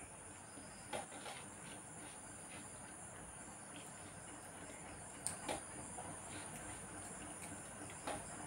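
Quiet sounds of eating rice by hand from metal plates, with a few light clicks of fingers and rice against the plates: about a second in, twice around five seconds in, and near the end. A steady high-pitched drone runs underneath.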